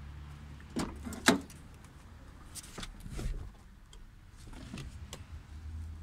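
Peugeot 306 front door being opened: two sharp clicks of the handle and latch, the second about a second and a half in and the loudest, followed by softer knocks and rustle as the door swings open.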